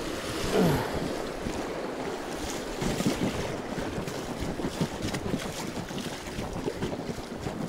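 Kayak paddle strokes splashing in choppy river water on a riffle, with the water rushing steadily and wind buffeting the microphone.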